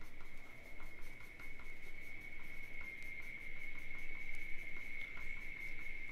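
Graphite pencil scratching on paper in many short, quick squiggly strokes, drawing fur lines. A steady high tone of unknown source runs underneath.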